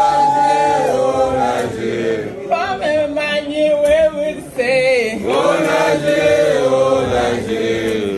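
A group of voices singing together, led by a woman singing into a microphone, with long held notes that slide in pitch.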